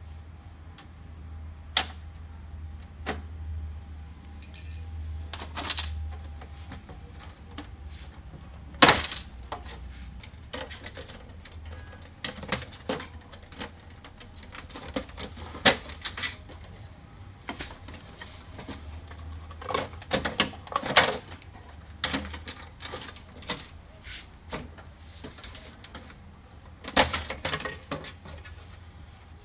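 The plastic side cover of an HP Color LaserJet Pro MFP M181fw printer being pried off by hand: irregular clicks and snaps of its plastic clips, with knocks and clatter as the panel is worked loose. The loudest knock comes about nine seconds in.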